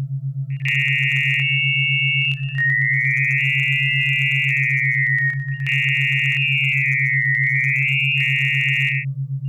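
Synthetic electronic test sound: a low hum pulsing rapidly and steadily, under a harsh high tone that comes in about half a second in and glides up and down in straight zigzag strokes, cutting out briefly twice. The high tone's pitch traces letter shapes: a word encoded in the sound, for the listener to picture.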